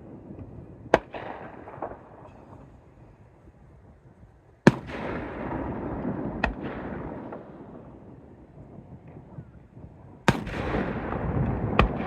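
Aerial firework shells bursting: a run of about five sharp bangs, the loudest near the middle and near the end, each trailed by a rolling rumble and crackle.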